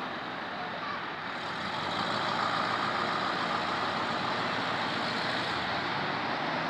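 Road traffic noise: a steady rush from approaching vehicles on the street, growing a little louder about two seconds in.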